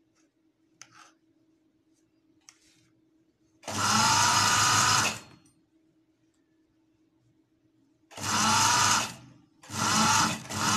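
Electric sewing machine stitching a trouser waistband in three short runs: one about four seconds in, then two close together near the end, each whining up to speed. A few faint clicks from handling the fabric come before the first run.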